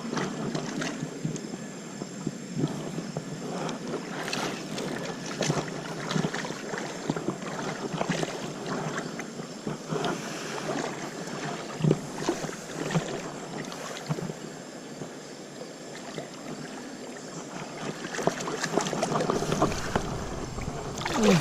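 Rushing river water, a steady noisy wash, with scattered short knocks and splashes throughout.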